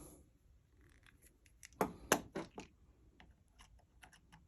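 Small sharp clicks and light scratching from hands handling a metal OTF automatic knife, with the loudest two or three clicks about two seconds in.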